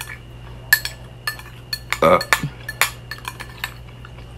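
A spoon clinking and scraping against a clear bowl as food is scooped up, in sharp separate clicks. One louder, brief sound falling in pitch comes about two seconds in.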